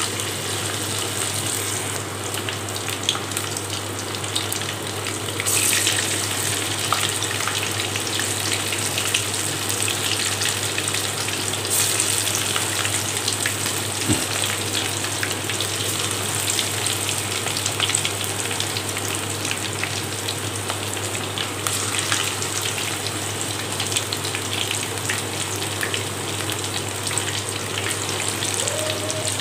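Balls of spiced cabbage-and-mushroom mixture deep-frying in hot oil in an aluminium kadai: steady sizzling and crackling of bubbling oil, flaring up briefly a couple of times, over a steady low hum.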